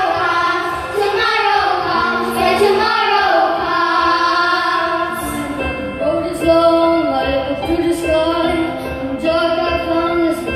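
A child singing a melody with wavering held notes over instrumental backing music.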